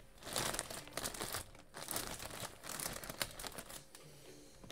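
Clear plastic poly bag crinkling in irregular bursts as a baseball jersey is pulled out of it and handled.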